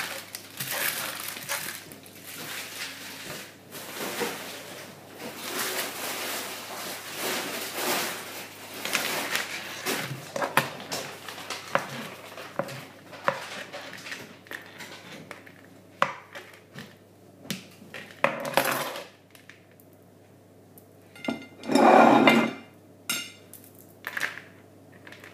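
Plates and cutlery being handled: many small knocks and clinks, thinning out after the first two-thirds, with one louder rushing noise about a second long near the end.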